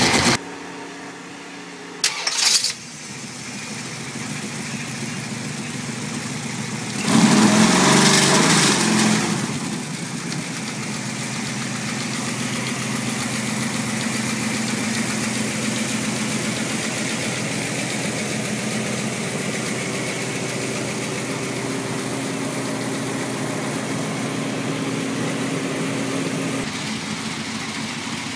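Big-block V8 with tall stack injection, on an engine run stand, starting up: a loud burst of revs about seven seconds in as it fires, then settling into a steady idle.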